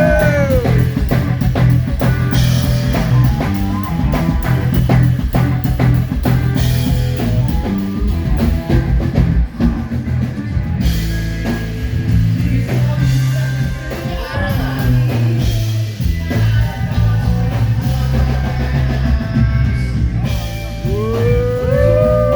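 Live rock band playing through a PA during a sound check: drum kit, bass and electric guitar, with a singer's voice at the very start and again near the end.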